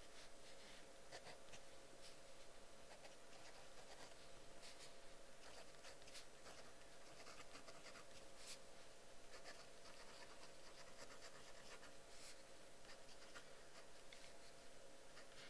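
Faint pen scratching on paper: quiet writing strokes with small scattered ticks, over a low steady hiss and hum.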